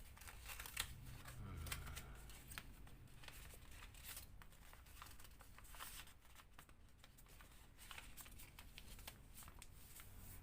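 Faint rustling and crackling of a square sheet of origami paper as it is folded by hand and its corners tucked inside, in many short, sharp crackles.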